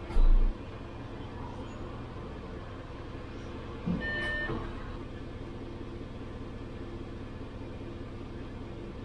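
City bus engine running steadily, heard from the driver's cab, with a loud low thump just after the start and a short electronic beep about four seconds in.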